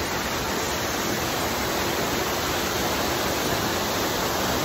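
A large waterfall falling onto rocks, a steady, even rush of water.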